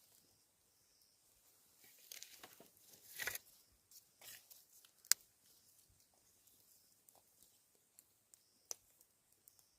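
Close handling noises: rustling and crinkling for a couple of seconds, then a few short sharp clicks, one a little after the middle and one near the end.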